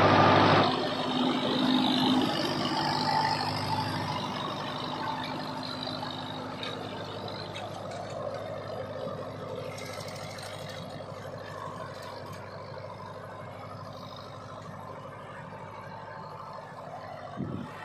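Sonalika Tiger 75 CRDI tractor's 75 hp diesel engine running steadily under load while it pulls a tine cultivator through the soil. The sound fades as the tractor moves away.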